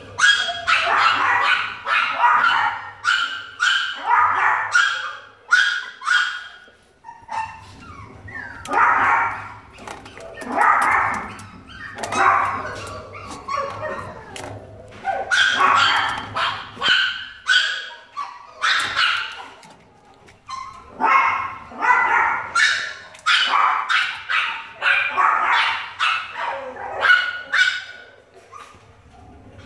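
Small chihuahua barking and yipping excitedly in quick runs of short, high calls, again and again with brief pauses.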